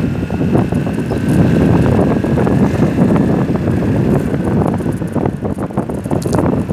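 Wind rushing over the microphone while riding a Vespa 300 scooter, steady and loud, with the scooter's single-cylinder four-stroke engine running underneath.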